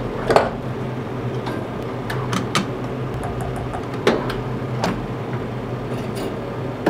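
Toaster oven's glass door being shut and opened again, with several short metal clanks and clicks from the door and from pliers against the wire rack, over a steady low hum.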